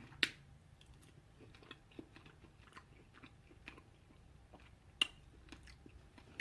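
Close-up chewing of food: soft, irregular wet mouth clicks and crunches, with a couple of sharper clicks, one just after the start and one about five seconds in.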